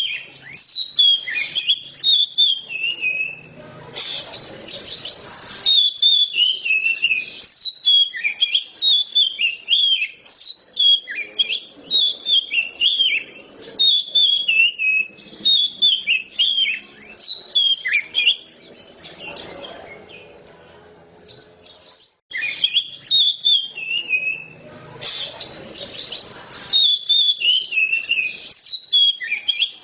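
Oriental magpie-robin singing a long, fast run of varied chirping and whistled notes, thinning out for a few seconds about two-thirds through before picking up again.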